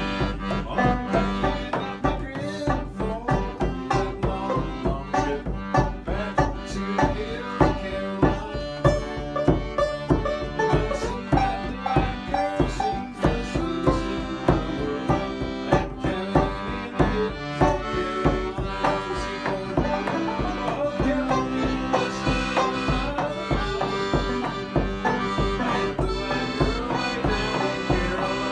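Live instrumental bluegrass played on banjo, accordion and a hand-held frame drum. The drum's strokes keep a steady beat under the accordion's held chords and the banjo's picking.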